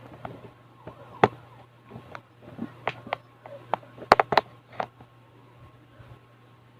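Irregular sharp plastic clicks and knocks from handling a ring light and pressing its control buttons, loudest about a second in and in a quick cluster near four seconds.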